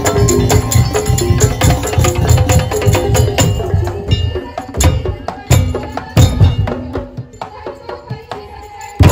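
Madurese daul ensemble playing: fast drum beats under ringing tuned metal percussion. In the second half it thins out to quieter, scattered strikes with a couple of loud hits. The full band comes back in right at the end.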